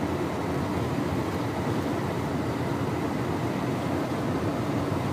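Steady low running noise of a Volvo VNL 670 semi-truck heard inside its cab: engine and road noise while driving, with no changes in pitch or level.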